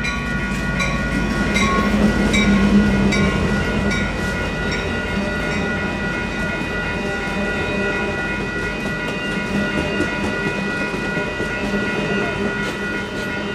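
Amtrak California San Joaquins bilevel passenger train passing over a road crossing. Its wheels click over the rail joints and rumble, loudest about two to three seconds in, while the crossing's electronic warning bells keep up a steady ringing.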